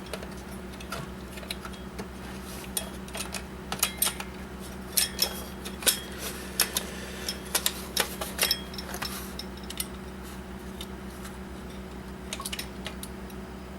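Irregular sharp clicks, taps and small metallic clinks of hand tools prying and working at small parts of an original Xbox motherboard, over a steady low hum.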